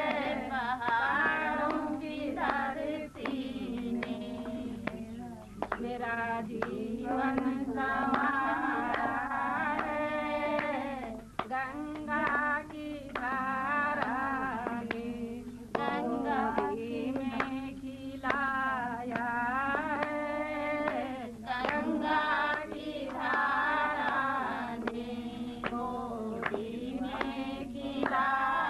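Women singing a song with wavering, held notes over a steady low drone, with scattered sharp percussive hits.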